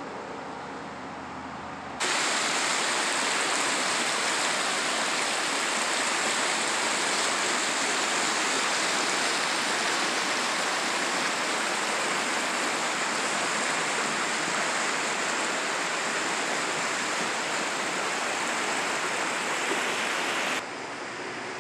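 Shallow mountain creek rushing over rocks in white-water riffles, a steady rush of water. It starts suddenly about two seconds in and cuts off suddenly about a second before the end.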